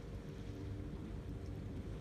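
Sea waves washing on a sandy beach, heard as a steady low rumble of surf mixed with wind, with a faint low hum underneath.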